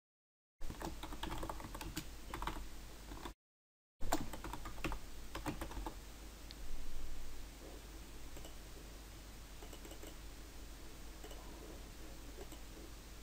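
Typing on a computer keyboard: quick runs of key clicks for the first six seconds or so, broken by a brief cut to dead silence just past three seconds, then faint steady hiss with a few soft clicks.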